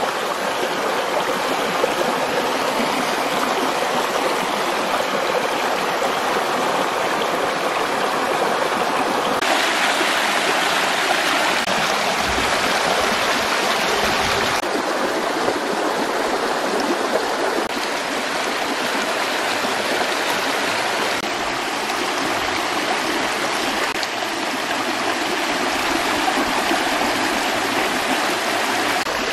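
Stream water rushing over rocks: a steady rushing noise whose tone shifts abruptly a few times.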